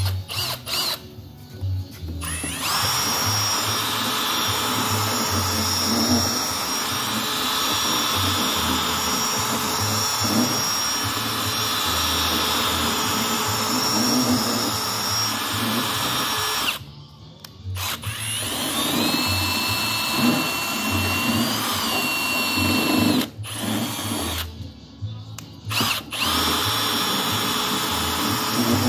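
Cordless drill running as it bores into the plastic fender of a zero-turn mower. There is a long steady whine, a stop, then a second run whose pitch rises, and another short run near the end.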